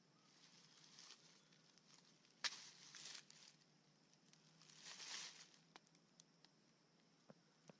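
Faint handling sounds of a large raw root tuber being broken apart by hand. A sharp snap comes about two and a half seconds in, followed by short rustling and scraping of the fibrous root, and another rustle around five seconds in.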